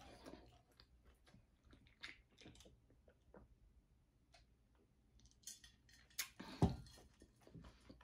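Soft chewing and sipping sounds from a person drinking from an insulated tumbler, with scattered small clicks, then a single sharp knock about two-thirds through as the tumbler is set back down.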